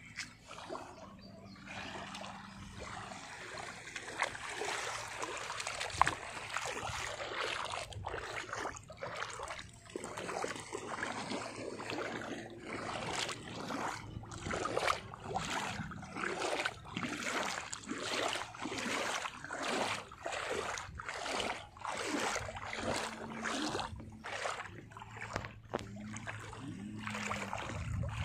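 Shallow sea water sloshing and lapping over sand. From about ten seconds in there is a run of short splashes, nearly two a second.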